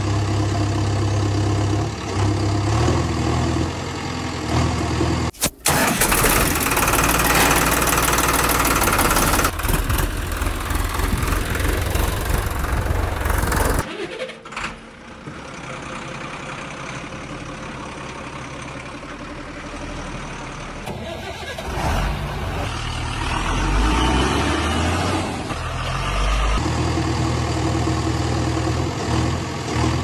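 Sound of a heavy vehicle's engine idling and revving, dubbed onto push-along toy vehicles that make no engine noise of their own. It changes abruptly about 5 seconds in and again about 14 seconds in, and is quieter after the second change.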